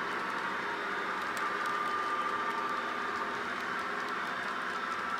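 S scale model freight train running along its track: a steady rolling noise with a few faint clicks.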